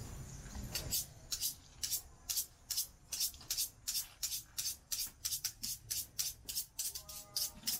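Background music comes in about a second in: a steady shaker or hi-hat beat at about three to four strokes a second, with a few held tones entering near the end.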